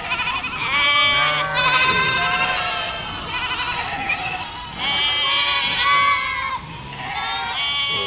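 A herd of goats bleating, several wavering calls overlapping one after another.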